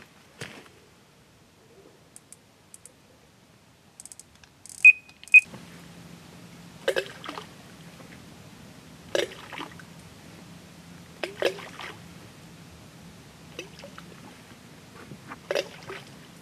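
Two short, loud, high electronic beeps about five seconds in. A steady low hum follows, with a soft knock about every two seconds.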